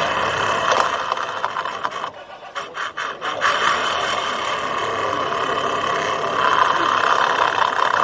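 Tornado lateral reinstatement cutter spinning inside a lined PVC pipe, grinding and rasping against the pipe liner. The grinding stutters and drops out briefly between about two and three and a half seconds in, then runs steadily again.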